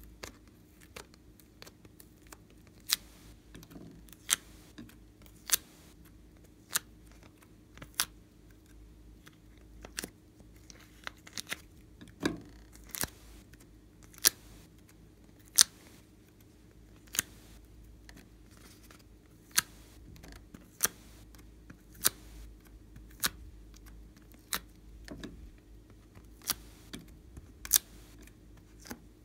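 Sharp clicks, about one a second, as pink discs are popped one by one out of a plastic mould tray.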